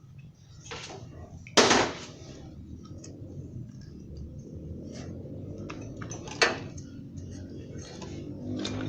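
Metal tools and parts clinking and knocking during work on a car's timing belt, with a loud clank about a second and a half in and another sharp knock past the middle.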